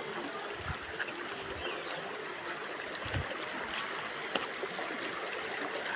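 Steady rushing of a mountain stream, with a couple of soft low thumps.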